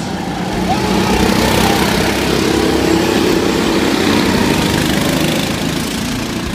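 Go-kart engines running on a track. The sound swells as a kart passes close by, is loudest in the middle, and fades near the end.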